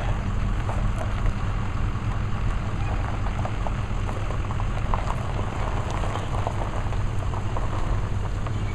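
Pickup truck engine running steadily with a low hum, with gravel crackling and crunching throughout.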